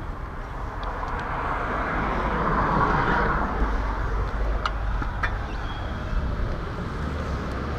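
Road traffic noise: a passing vehicle swells to its loudest about three seconds in and then fades, over a steady low rumble.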